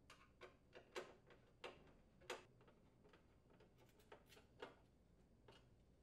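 Faint, irregular metal clicks and taps as a screwdriver threads screws through a steel support brace into an electric range's main top.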